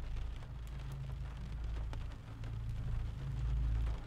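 Rain falling steadily, with a low steady rumble underneath.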